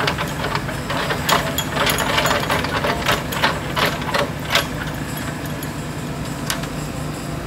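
Kubota mini excavator's diesel engine running steadily while it hoists a mud-caked grate on a chain. Sharp clicks and clanks come thick and fast over the first four seconds or so, with one more near the end.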